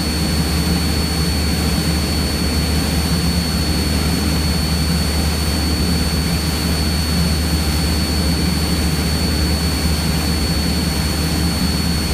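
Cessna 172's piston engine and propeller droning steadily in cruise, heard from inside the cabin. A thin, steady high-pitched whine runs along with it.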